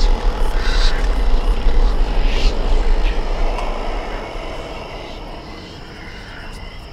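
Deep, steady rumbling drone, loud at first, with a few brief higher swishes over it, then fading away from about four seconds in.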